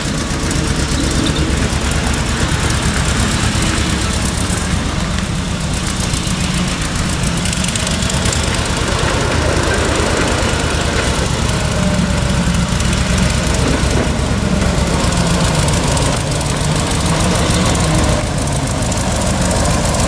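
Engine of a ride-on miniature train locomotive running steadily under a driver.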